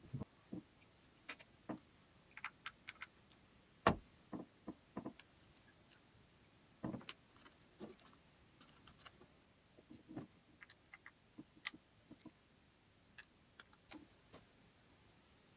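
Irregular light clicks and taps of small drill parts being handled on a work surface, with one sharper knock about four seconds in.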